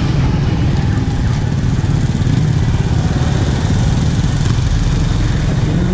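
Motorcycle engine running steadily under way, mixed with a dense low rumble of road and wind noise, heard from a camera mounted on the moving bike.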